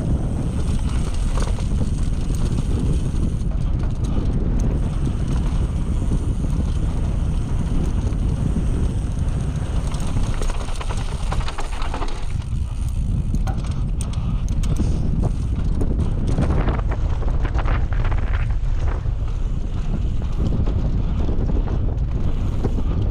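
Wind buffeting the microphone of a GoPro Hero5 Session on a mountain bike riding dry dirt singletrack, over the rumble of the tyres on the dirt, with scattered clicks and rattles from the bike over bumps.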